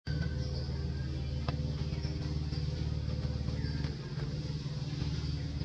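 An engine running steadily at idle: a low, even hum.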